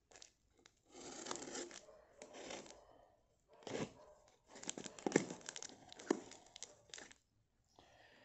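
Box cutter slicing through packing tape on a cardboard box and the tape and flaps being torn open, in several scratchy bursts with a few sharp clicks.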